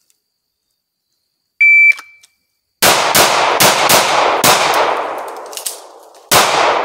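An electronic shot timer gives one high beep, then a handgun fires a fast string of shots, each with a ringing echo. A break of about a second and a half follows, the point in this malfunction drill where a dummy round stops the gun and is cleared, and then one more shot comes near the end.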